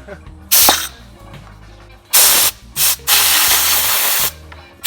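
Spray hissing in bursts: three short blasts, then one lasting over a second, as the tight handlebar grips are worked on.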